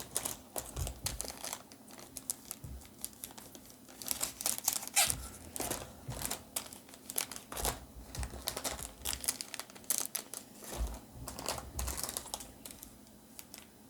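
Foil Pokémon booster pack wrappers crinkling and rustling in irregular bursts as they are handled and torn open.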